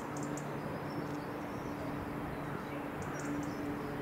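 Class 66 diesel freight locomotive approaching, its engine giving a low steady drone over a rumble. Birds chirp briefly near the start and again about three seconds in.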